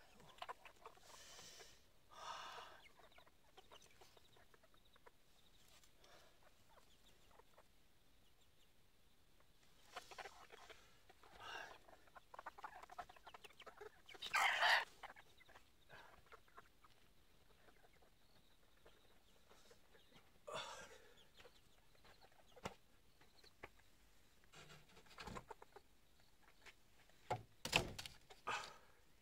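A chicken clucking and squawking now and then in short calls, the loudest about halfway through, with a few sharp knocks near the end.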